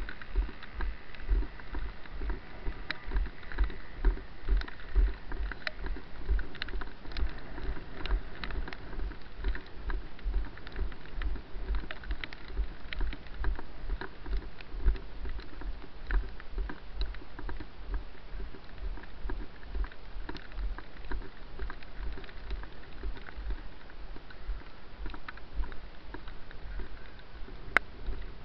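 Walking footsteps jolting a body-worn camera, heard as a steady rhythm of low thuds, about two to three a second, with scattered light clicks and a sharper click near the end.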